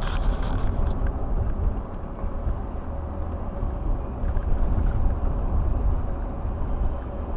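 Steady road and engine rumble inside a moving 2012 Chevrolet conversion van, with a faint steady hum and a brief crackle at the start.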